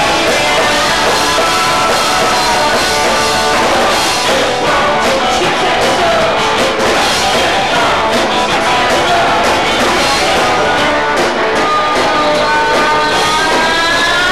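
Live rock band playing loud new wave: electric guitar, drum kit and a woman singing, with a long held sung note near the end.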